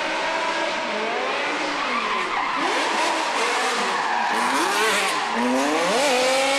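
The M5 V10 engine of a drift-built BMW E92 coupe revving up and down as the car slides sideways, over the noise of its rear tyres skidding. Near the end the revs swing sharply up and down a couple of times.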